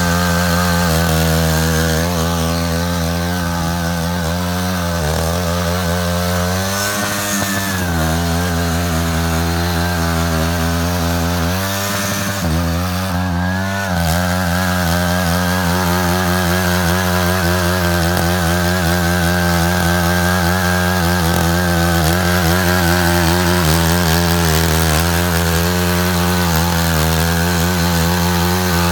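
Matsuda walking tractor's engine running steadily under load while it cuts a ditch. Its pitch sags and recovers twice, about seven and twelve seconds in.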